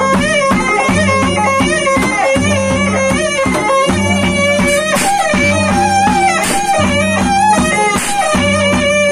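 Traditional ensemble music: a woodwind plays a wavering, reedy melody over a steady beat of frame drums and small clashing cymbals.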